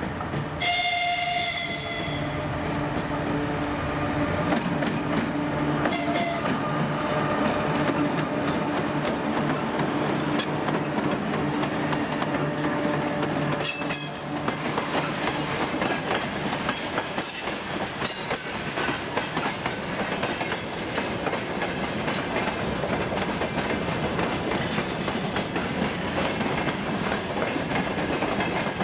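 A 2TE116 two-section diesel locomotive gives a short horn blast about a second in and a shorter, fainter one near six seconds, while its diesel engines run loudly as it passes under load with a freight train. After about fourteen seconds the engine sound gives way to the rolling rattle and clickety-clack of freight wagons going by.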